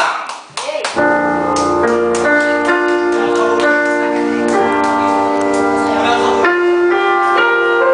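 Slow piano music with held chords starts about a second in, just after the end of a man's voice on a microphone.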